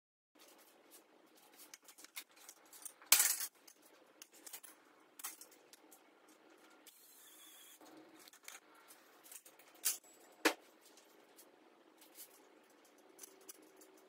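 Small metal fender hardware and hand tools clinking and clattering as a front fender is bolted to an e-bike's fork. The loudest clinks come in a cluster about three seconds in, two more sharp ones land near ten seconds, and lighter taps are scattered between.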